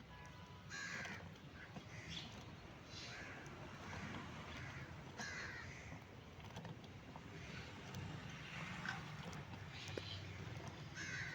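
A bird calling over and over in short calls, roughly one a second with a few gaps, above a low steady background noise.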